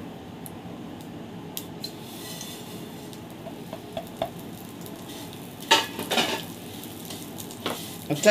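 Vermicelli frying in hot ghee in a nonstick frying pan, with a faint sizzle from about two seconds in. A spatula scrapes and stirs it around the pan in a few loud strokes past the middle, and once more near the end.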